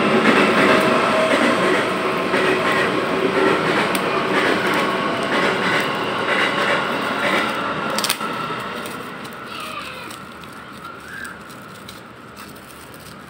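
Loud, steady rumble of a passing vehicle with several whining tones in it, fading away between about eight and ten seconds in. A brief crackle near eight seconds.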